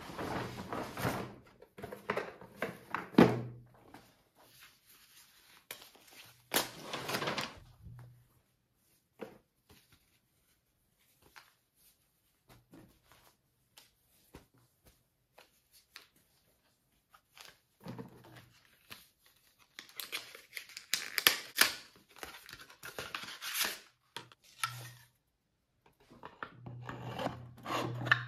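Rustling and crinkling of a kraft-paper shopping bag as items are taken out, cloth tea towels being shaken open, and light knocks as things are set down on a tabletop. The rustling comes in irregular spells with gaps of near quiet, and there is one sharp knock about three seconds in.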